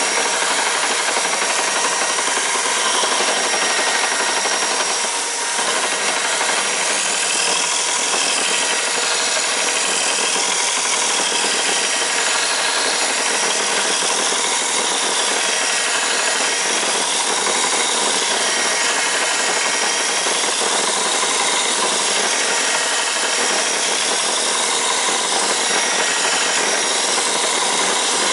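An axe blade being ground on a motor-driven sharpening jig at low speed. The grinding hiss is steady, with a high whine that wavers up and down as the blade works across the abrasive.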